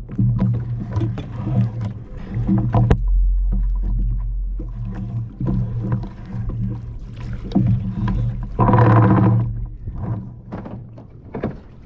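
Anchor rope being hauled in hand over hand aboard a plastic sit-on-top fishing kayak: rope rubbing and knocking against the hull over a low hum that comes and goes, with a sharp knock about three seconds in and a louder rubbing surge near the end.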